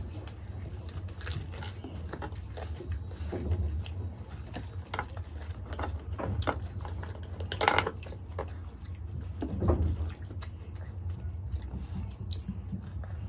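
Close-up eating sounds: chewing and wet mouth sounds as buttered methi paratha is eaten, with the flatbread torn by hand and light clicks of fingers and food on steel plates. There is a steady low hum underneath, and one louder sharp click a little past halfway.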